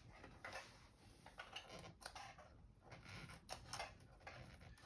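Faint, irregular clicks and crackles of adhesive tape being picked at and peeled back from the metal shield inside an LCD monitor.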